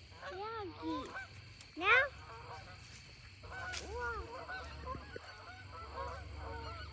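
Geese honking: a string of short, arching calls with one loud rising call about two seconds in, then several birds calling over each other from about halfway through.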